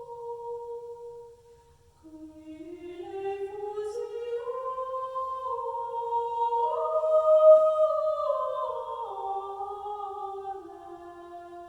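A demo CD playing through Focal Chora 826 loudspeakers: an unaccompanied, slow melody in long held notes. It breaks off briefly about a second and a half in, then climbs step by step to its loudest note past the middle before stepping back down.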